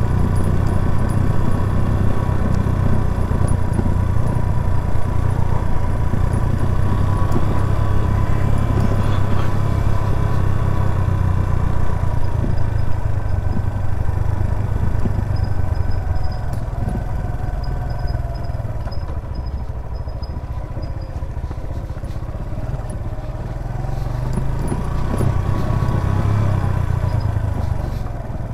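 Suzuki GS 150 SE's single-cylinder four-stroke engine running under way. The engine note eases off a little past halfway and picks up again near the end.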